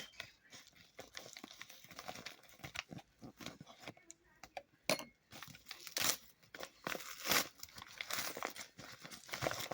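Packaging of a new charger plug being handled and torn open: irregular crinkling and tearing, loudest in the second half.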